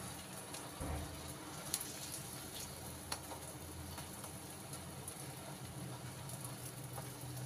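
Semolina chilla batter sizzling steadily on a hot griddle as it fries, with a couple of sharp clicks a little under 2 seconds in and about 3 seconds in.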